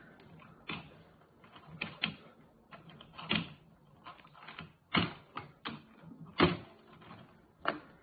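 Irregular plastic clicks and knocks as the Henry desk vacuum's hose and nozzle are handled and fitted together on a wooden table; the vacuum itself is not switched on.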